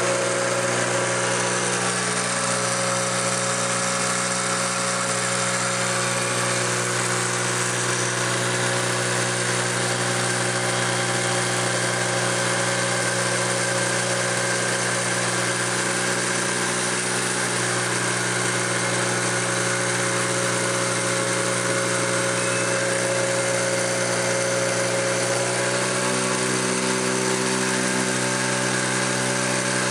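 Bench rig of a 12-volt DC electric motor directly driving an automotive alternator, running steadily with a mechanical hum and hiss; the alternator's excite wire is removed, so it is spinning without charging the battery. A few new tones join the hum about 26 seconds in.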